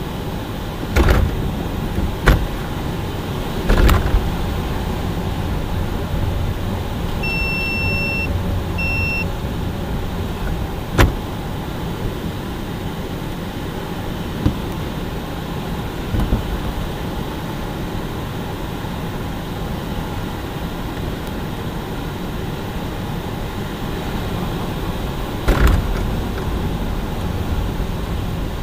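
Light aircraft's propeller engine running steadily with airflow noise, heard from inside the cockpit. A few sharp thumps come through, and a short electronic beep sounds twice, one long and one short, about seven to nine seconds in.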